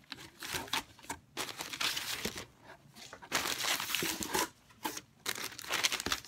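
Thin white tissue wrapping paper rustling and crinkling as it is lifted and folded back inside a cardboard box, in short irregular spurts with brief pauses.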